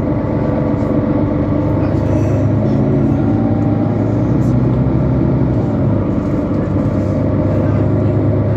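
Mercedes-Benz Citaro C2 city bus's diesel engine and drivetrain running steadily under way, heard from on board.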